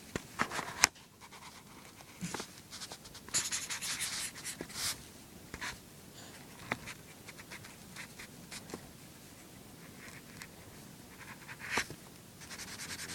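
A drawing tool scratching across paper in short, irregular strokes, with a run of quick strokes about three to five seconds in and scattered taps between.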